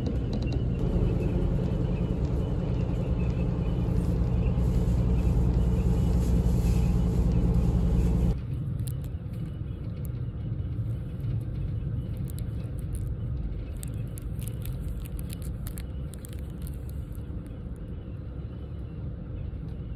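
Train running noise heard inside a diesel railcar's cabin: a steady rumble with the engine's low hum. About eight seconds in it drops abruptly to a quieter running rumble, with light crinkling of a plastic wrapper over it.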